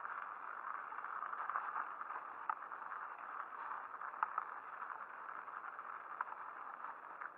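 Mountain bike riding over a rough, snow-patched forest trail: a steady hiss of tyres on the ground, broken by a few sharp clicks and rattles from the bike going over bumps.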